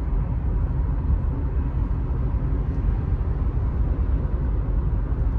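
Steady low rumble of a car driving at highway speed, heard from inside the cabin: road and tyre noise.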